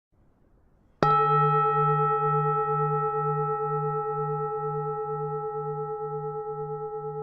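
Temple bell struck once about a second in, then ringing on with several steady tones that slowly fade. Its low hum pulses evenly, about two to three times a second.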